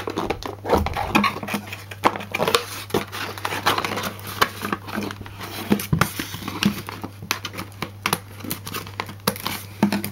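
Hands opening a taped cardboard toy box: irregular scraping, crinkling and small knocks of cardboard and packing tape being picked at and pulled.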